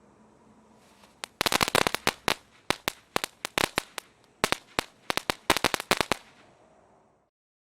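Brothers Spitfyre fountain firework crackling: a quick run of sharp pops about a second in, then irregular clusters of loud cracks over a faint hiss for about five seconds, dying away near the end.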